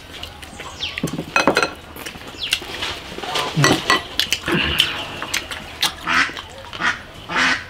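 Eating at a table: chewing and mouth noises, with scattered clicks of chopsticks, glasses and dishes against the table.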